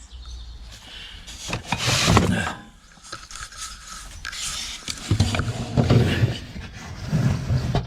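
Irregular scraping and knocking of hand tools being handled, in two bouts with a short lull between.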